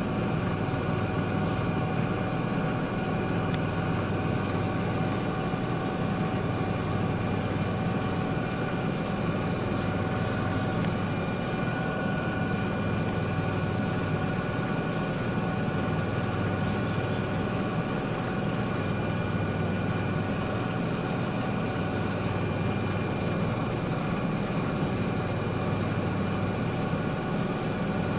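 Miele W1 front-loading washing machine running steadily mid-programme: an even motor hum with a few thin, steady whine tones over a wash of noise.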